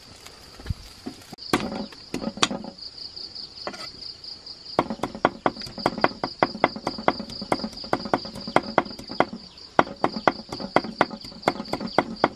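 Machete blade being sharpened on a stone with quick back-and-forth strokes: a few at first, then a steady run of about three strokes a second. Insects trill steadily behind.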